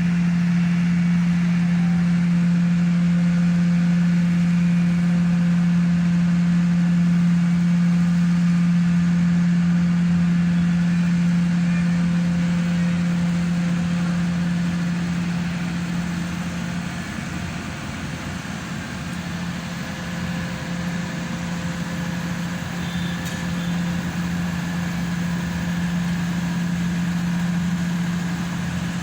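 Hydraulic static pile driver's engine and hydraulic power unit running steadily with a strong hum. It eases off for a few seconds after about 17 seconds, then picks up again.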